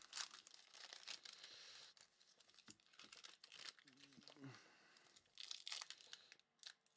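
Faint crinkling and tearing of a trading-card pack wrapper being ripped open and handled, with a busier flurry of crinkling about five to six seconds in.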